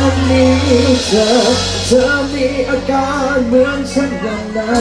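A live rock band playing loudly through a PA, with electric guitar, bass and drums and a wavering lead melody line over sustained low bass notes that change pitch about a second in.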